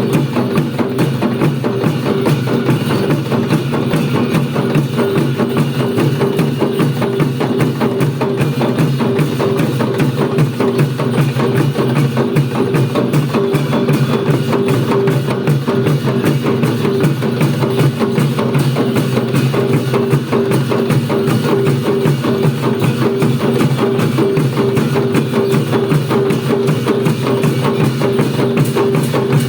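Traditional festival drum and percussion music for the Bhairab dance: fast, unbroken beating over a steady held tone.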